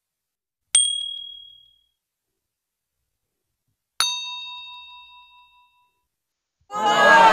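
Notification-style sound effects. A short high ding about a second in, then a bell-like ding with several ringing tones at about four seconds that rings out for nearly two seconds, and near the end a sound effect whose tones slide downward.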